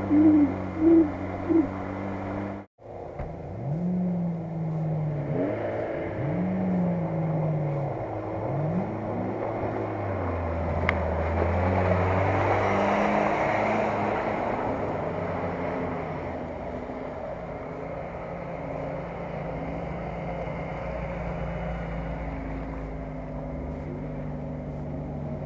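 Off-road 4x4 engines revving up and down as the vehicles churn through mud and shallow water, with a rush of splashing water around the middle.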